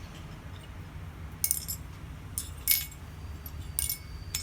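Steel blacksmith tools clinking as they are handled and set down: about five sharp metallic clinks spread over a few seconds, the later ones leaving a faint high ringing note.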